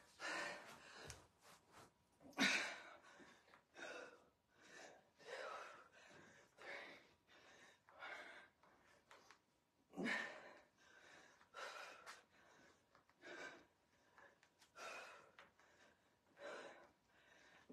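A woman breathing hard under exertion: short, sharp exhales about once a second, in time with bicycle crunches. Two louder ones come about two and a half and ten seconds in.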